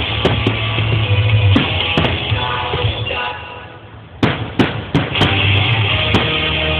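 Rock-style music with drums played over a fireworks display. The music drops away in the middle, then several sharp firework shell bursts bang in quick succession about four seconds in before the music comes back up.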